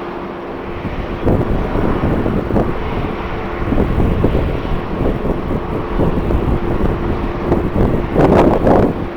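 Strong wind buffeting the microphone in gusts over the steady noise of a jet airliner's engines, with a faint steady hum now and then; the heaviest gust comes near the end.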